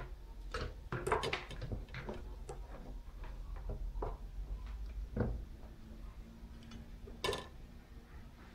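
Kitchen knife scraping and nicking the insulation of an electrical cord, a string of irregular small clicks and scratches. A sharper knock near the end as the knife is set down on the wooden table.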